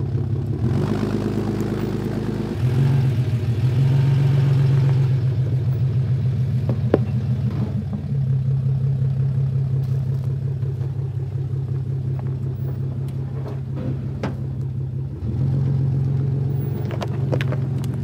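Off-road vehicle engine running, its revs stepping up and down several times under throttle, with a few sharp clicks.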